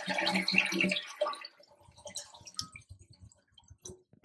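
American Standard toilet flushing with its water supply shut off: water rushing out of the tank and through the bowl, dying away about a second and a half in and leaving only scattered faint drips and trickles, with no refill.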